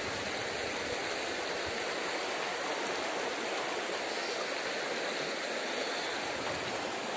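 Steady rush of the Erang River's flowing water.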